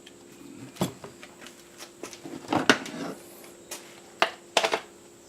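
Spray-gun parts and tips being handled and set down on a hard surface: a handful of sharp clicks and knocks, the loudest about two and a half seconds in.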